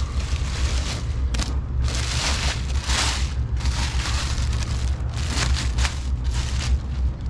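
Packaging rustling and crinkling in irregular bursts as parts are handled and pulled from the box, over a steady low hum.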